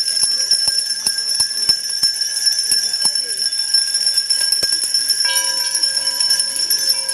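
Many bells being rung together by a crowd: a continuous jangle of quick strikes over a steady ringing, with people's voices murmuring underneath.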